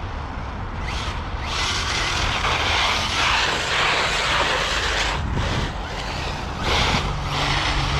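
Traxxas Maxx RC monster truck running on snow, its tyres spinning out in hissing bursts over a steady low rumble.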